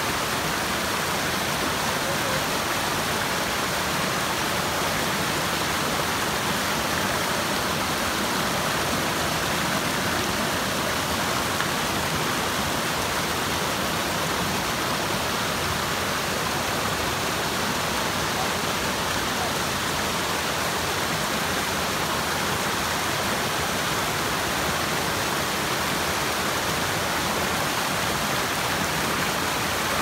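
A rocky stream cascading over boulders: a steady rush and splash of white water that holds even throughout.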